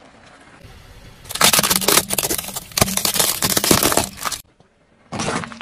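Car tyre rolling over and crushing something brittle: a dense run of cracking and crunching for about three seconds, with a low hum under it, then a second short burst of crackling near the end.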